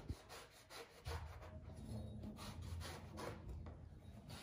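A large knife shaving the husk off a young green coconut: a quick series of short scraping strokes, several a second.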